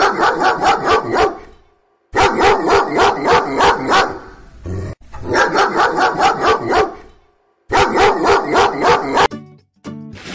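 Dog barking in four quick runs of about eight sharp barks each, about six barks a second, with short gaps between the runs. The runs are so alike that they sound like one repeated sound effect. A short, different sound takes over near the end.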